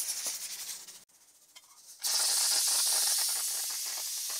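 Pressure cooker venting steam through its valve at the end of cooking: a steady high hiss that drops out about a second in, then comes back after a short gap and runs on evenly.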